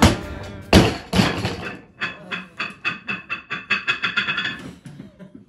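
Barbell loaded with rubber bumper plates dropped onto a lifting platform: a hit at the start, then two heavy bounces about a second in. After that comes a run of quick, even clicks, about five a second, for a few seconds.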